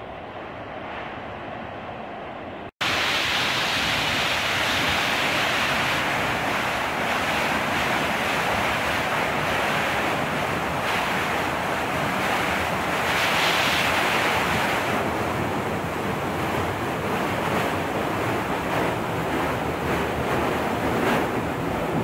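Steady rush of the Steinsdalsfossen waterfall, heard from a distance at first; about three seconds in, after a brief dropout, it becomes much louder and closer, heard from right behind the falling water.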